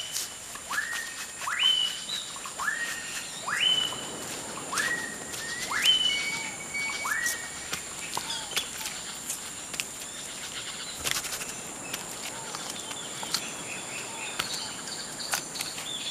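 Forest bird calling: a short note that sweeps up and then holds level, repeated about once a second for the first seven seconds or so. A steady high-pitched whine runs throughout, with scattered faint ticks in the second half.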